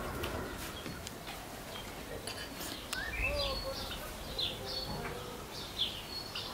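Garden ambience of small birds chirping, short high calls repeating about twice a second from partway in, over a faint murmur of voices.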